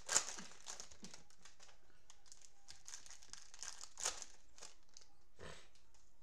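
Crinkling plastic cellophane wrapper of a football trading-card cello pack being torn open and handled, in irregular crackles that are loudest right at the start, again about four seconds in and once more near the end.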